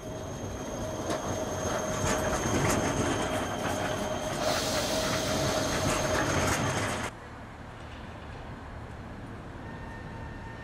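Modern low-floor electric tram passing close by on street track, a steady whine with a few sharp wheel clacks and a high hiss building in the middle. It cuts off abruptly about seven seconds in, leaving quieter street sound.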